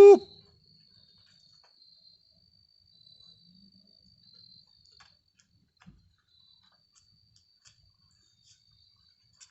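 A loud hoot cuts off right at the start. A faint, steady, high-pitched insect trill, most likely a cricket, follows; it breaks off for a couple of seconds in the middle and comes back, with a few faint ticks.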